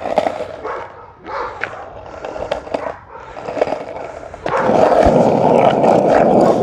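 Skateboard wheels rolling on asphalt, becoming a loud steady rumble about four and a half seconds in as the board comes close. Dogs bark fainter in the first half.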